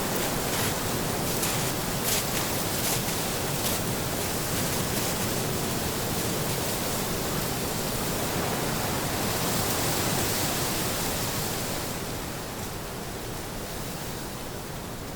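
Steady brown-noise rushing, with the crunch of footsteps in snow about every three-quarters of a second for the first few seconds. The noise eases down near the end.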